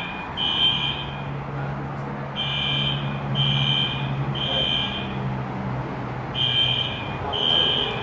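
Building fire alarm sounding its temporal-three evacuation pattern: three loud, high-pitched tone pulses about a second apart, then a short pause, repeating. The alarm is believed to have been pulled as a prank.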